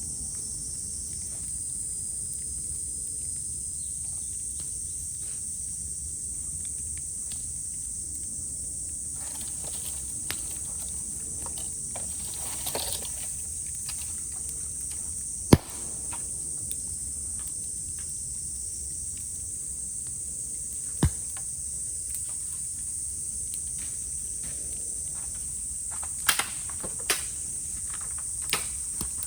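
Cicadas buzzing steadily in a continuous high drone, over the sharp pops and crackles of bamboo burning in a bonfire. The loudest is a single crack about halfway through, another follows some seconds later, and a quick cluster of pops comes near the end.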